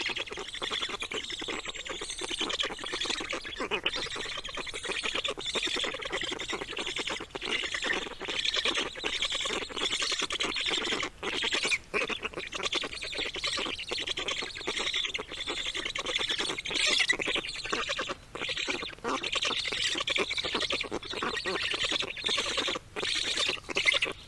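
Nestlings begging for food, a continuous dense chorus of harsh, high squawking calls with a few brief pauses.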